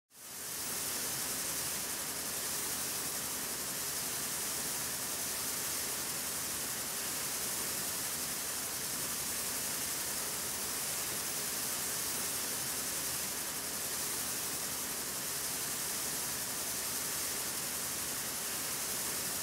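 Steady, even hiss of noise, strongest in the highs, that fades in over about the first second and then holds level.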